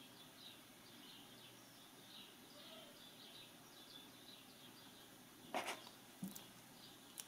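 Faint bird chirps in the background, then, about five and a half seconds in, a few sharp clicks and knocks of a small plastic toy being set down on a wooden table.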